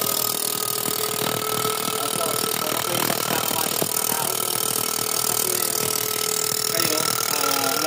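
Car engine running unevenly, with an irregular puffing, sputtering beat typical of a misfire, under a steady hiss. Faint voices in the background.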